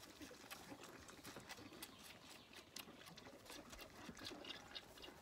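Faint, irregular clicking and smacking of a lamb sucking milk from a bottle teat, several small clicks a second, with light rustling of straw.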